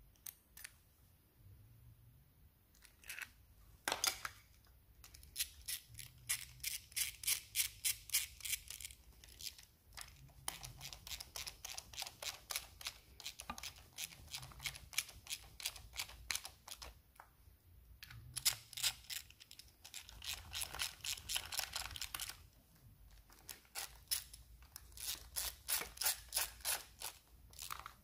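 Ratchet wrench clicking in four runs of even clicks, about three or four a second, with metal parts handled between: the diesel injector clamp bolts being run in on a 3.0 TDV6 V6 engine.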